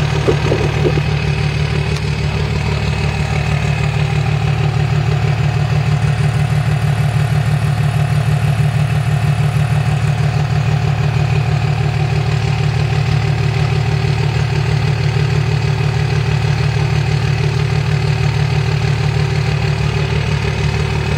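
Exhaust of a 2005 Dodge Ram 2500's 5.9-liter Cummins inline-six turbo diesel idling steadily, heard close to the open tailpipe of a stainless exhaust bypass setup.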